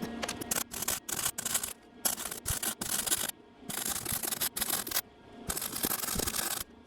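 A welder laying short welds on a steel mower deck to reattach a torn-off corner bracket: a harsh crackling hiss that stops and starts many times, with a few longer breaks.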